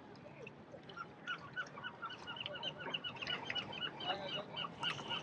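Birds calling: a rapid chatter of short, repeated chirps that starts about a second in and keeps going.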